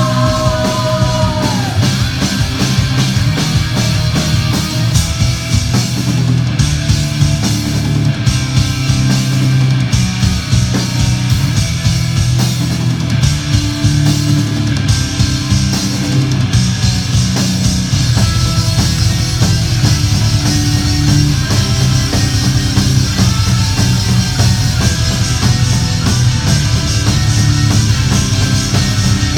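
A live hard rock band playing at full volume: distorted electric guitar, bass guitar and a busy drum kit driving a heavy, steady groove. A held high note ends about a second and a half in.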